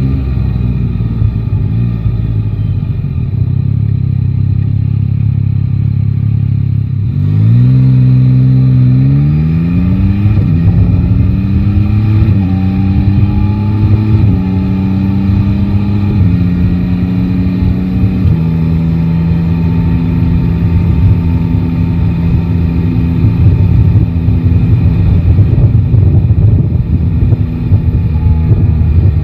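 Yamaha Tracer 9 GT's inline three-cylinder engine running low for about seven seconds, then accelerating hard and shifting up through the gears, about five quick shifts, before settling into a steady cruise with wind rush on the microphone.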